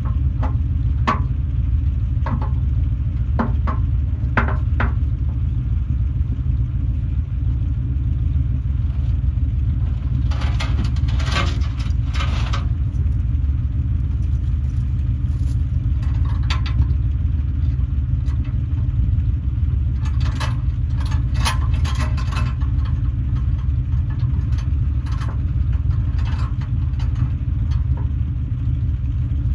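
A truck engine running steadily with a low rumble, with scattered rattles and knocks in clusters every few seconds.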